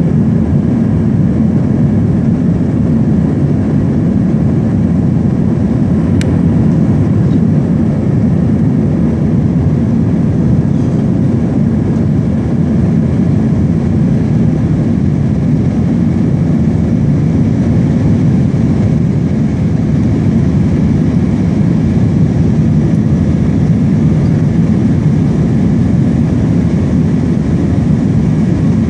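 Airliner cabin noise during the climb after takeoff: the jet engines and airflow make a steady low rumble with a faint whine above it. A single faint click comes about six seconds in.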